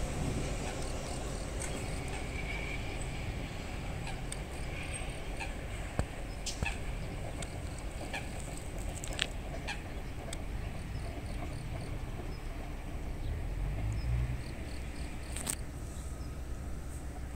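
Enshu Railway 1000-series electric train fading away along a concrete viaduct over the first couple of seconds. It leaves a low, steady outdoor rumble, with a few short sharp ticks scattered through it.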